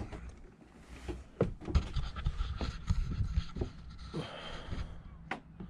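A person breathing audibly close to the microphone, with scattered sharp clicks and knocks of handling and movement, over a steady low hum.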